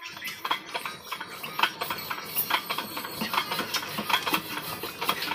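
12 hp stationary diesel engine being cranked by hand with its starting handle, flywheels spinning: a rapid, uneven run of metallic clicks and knocks.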